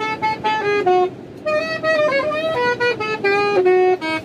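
Saxophone played loudly in a quick run of short notes, with a brief break about a second in; the playing stops suddenly near the end.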